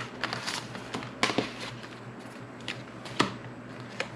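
Paper sticker sheets being handled and laid down: soft rustling of paper with a few sharp taps and clicks.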